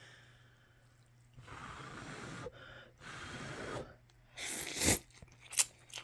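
A person eating noodles: two noisy stretches of about a second each, then a short, louder slurp about four and a half seconds in.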